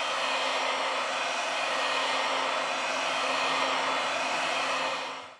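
Heat gun blowing hot air steadily onto the back of a phone, heating it to 90 °C: a steady rush of air with a faint low hum underneath. It fades out near the end.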